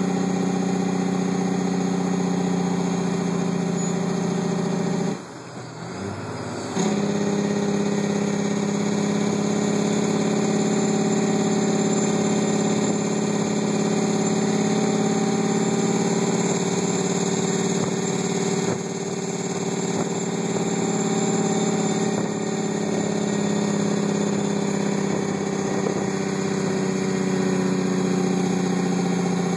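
Heavy truck's diesel engine on the Jake brake (engine compression brake) going downhill, heard from inside the cab. It cuts out for about two seconds about five seconds in, comes back on, and its pitch slowly falls as the truck slows.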